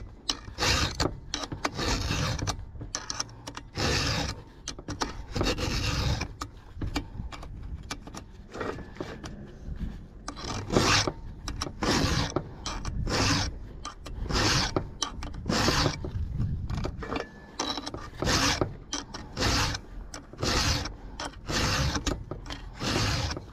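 A 5.5 mm round chainsaw file in a file guide rasping across the cutters of a .404 semi-chisel chainsaw chain, sharpening it by hand. The strokes are steady and even, roughly one a second, with fewer and quieter strokes for a few seconds in the middle.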